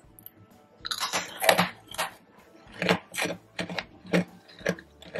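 Crisp dalgona (Korean honeycomb sugar candy) being bitten into about a second in, then chewed in a run of crunches, roughly two to three a second.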